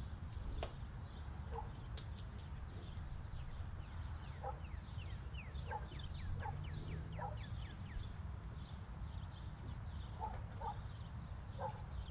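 Animal calls: a rapid run of short falling chirps in the middle, with scattered short yips, over a steady low rumble.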